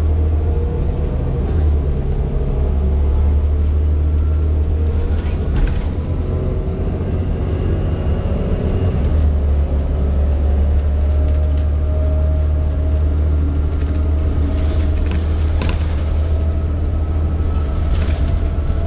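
Inside a 2012 New Flyer D40LFR diesel city bus with a Cummins ISL9 engine, under way: a steady deep drone of engine and road, with faint whining tones that slowly drift in pitch as speed changes. A few light clicks and rattles come through, once about five seconds in and twice near the end.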